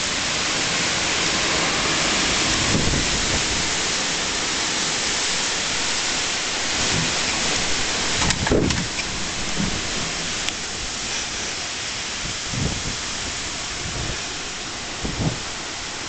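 Heavy rain falling steadily, a dense hiss, with a few brief low thumps, the strongest about halfway through.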